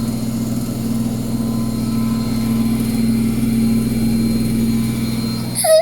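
Washing machine running with a loud, steady, even-pitched drone, the noise its owners call noisy. A brief sharp sound comes just before the end.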